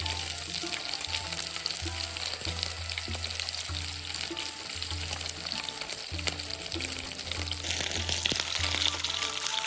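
Fish sizzling and crackling as it fries in hot oil in a pan. The sizzle grows louder near the end.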